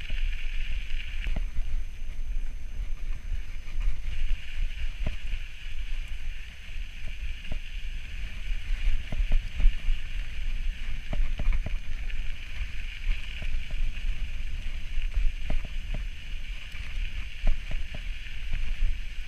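Mountain bike rolling over a gravel trail, its tyres crunching, with wind buffeting the camera's microphone as a low rumble and scattered small clicks and rattles from gravel and the bike.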